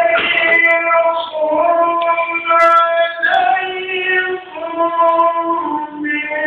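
A single high voice singing a devotional naat in long, held notes, phrase after phrase, with no instruments.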